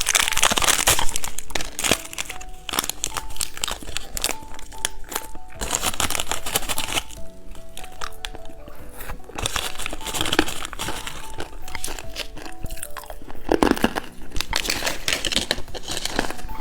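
Plastic candy wrapper crinkling and rustling as it is handled and opened, in irregular bursts, over soft background music.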